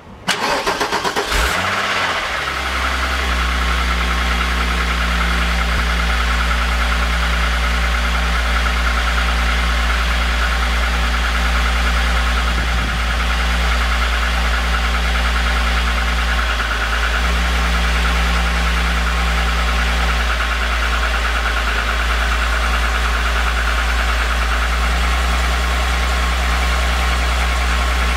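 VR6 engine starting: it catches just after the start, flares briefly and settles into a steady idle by about two to three seconds in. It runs with a noise that the owner suspects may be piston slap.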